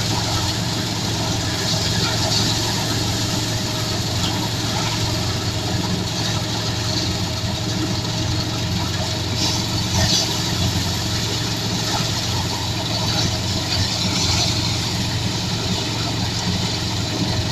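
Engine-driven rice thresher running steadily during a test run: a continuous engine drone with mechanical noise and a few faint knocks.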